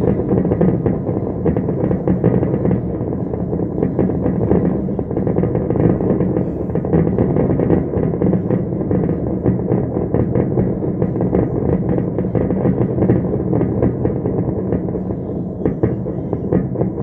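New Year's fireworks going off in a dense, continuous barrage of rapid bangs that run together into a heavy, dull rumble, easing slightly near the end.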